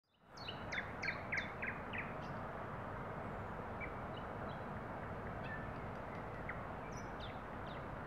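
Thrush nightingale singing: a run of about six loud, sharp, clicking notes in the first two seconds, then fainter scattered notes over steady background noise.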